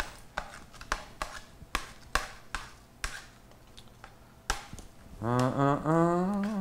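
Metal tongs clacking against a metal sheet pan as frozen chicken wings are flipped over one by one: irregular sharp clicks, about two a second. A voice comes in without words near the end.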